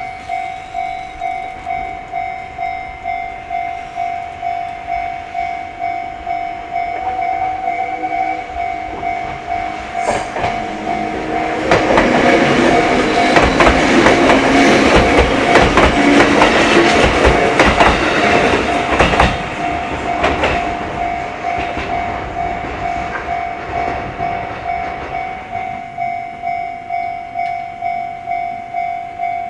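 Japanese railroad-crossing alarm ringing its electronic bell, a steady pulse about one and a half strokes a second. A train passes through the middle of the clip, loud for about eight seconds, its wheels clattering over the rail joints. The bell keeps ringing after it has gone.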